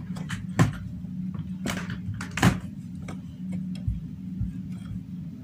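Light clicks and taps of multimeter test probe tips against the LED chips on a bulb's circuit board, the sharpest about half a second and two and a half seconds in, over a steady low hum.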